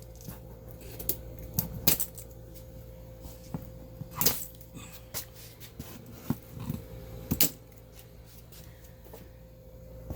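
Plastic packing straps around a cardboard box being cut, with a few sharp snaps and scattered clicks over a steady low hum.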